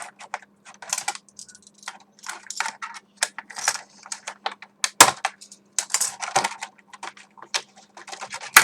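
Earbud packaging and paper manuals being handled: irregular rustling and crinkling with sharp clicks, the loudest about five seconds in and at the very end.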